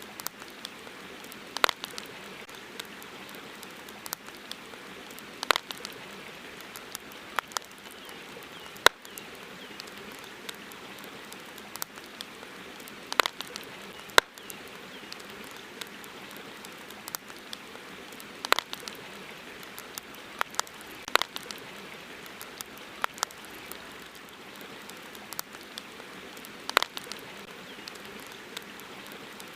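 Campfire crackling: irregular sharp pops and snaps, one every second or so, over a steady hiss.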